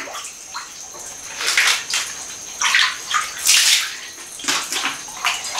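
Bath water sloshing and splashing in a wood-fired bathtub as the bather moves in it. There are several short splashes, the loudest a little past halfway.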